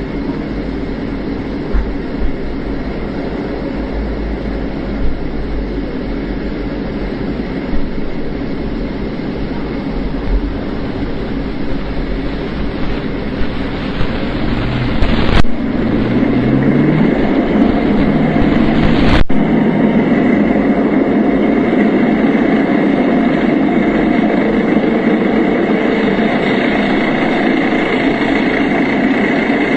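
M-95 Degman main battle tank on the move: engine and running gear sounding steadily. About halfway through, the engine note rises and the sound gets louder; it changes abruptly twice.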